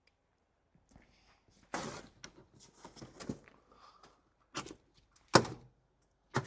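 A scattering of knocks, clunks and brief scraping, as of parts and packaging being handled, with two sharp knocks near the end.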